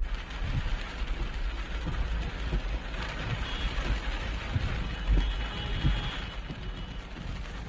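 Heavy rain pouring down in a steady hiss, with low rumbling and several soft thumps underneath.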